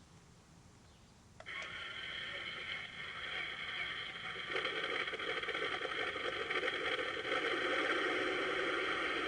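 Electronic sound unit of a 1/16 RC tank playing a simulated tank engine through its small speaker: a click about a second and a half in, then a steady engine hum that grows louder and fuller about four and a half seconds in, settling into an idle.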